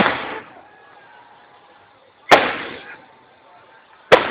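Aerial firework shells exploding: three sharp bangs about two seconds apart, each followed by a fading echo.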